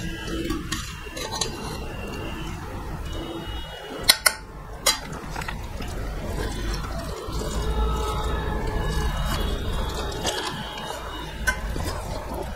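Close-miked eating sounds: wet chewing and mouth smacking as fish and rice are eaten by hand, with fingers mixing food on steel plates. A few sharp clicks come about four and five seconds in.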